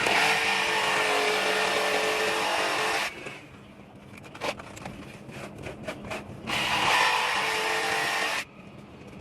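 A power tool running in two bursts, about three seconds and then about two seconds long, with scattered clicks and knocks in the quieter gap between them.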